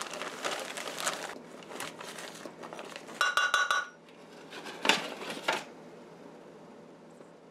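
A zip-top plastic bag crinkling as a measuring cup scoops flour out of it, then four or five quick ringing clinks about three seconds in as the cup knocks against a stainless steel mixing bowl, and a short rush near five seconds as the flour is tipped into the bowl.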